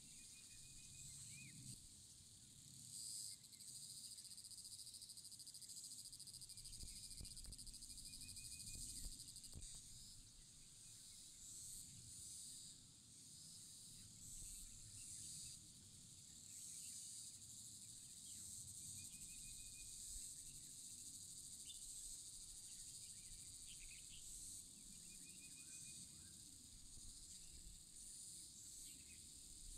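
Quiet outdoor ambience: a steady, high insect chorus that swells and eases, with short trilled bird calls several times and a faint low rumble underneath.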